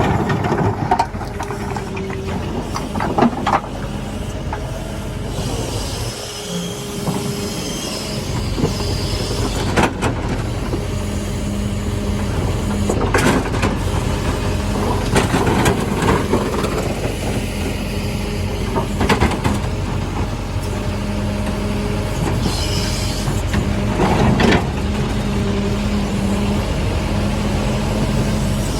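Excavator running at work loading rubble. A steady diesel engine note rises and falls with the hydraulics under load, and there are intermittent clanks and clatters of the bucket and rubble.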